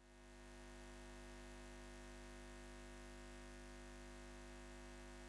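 Faint steady hum made of several held low tones, fading in over the first half second.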